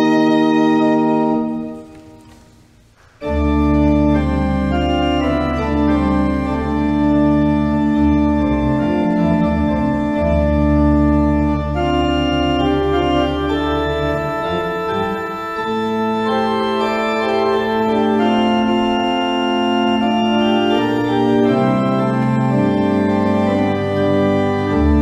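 Church pipe organ playing. A held chord dies away with echo about two seconds in, and after a short pause the organ enters loudly with slow, sustained chords over a deep pedal bass.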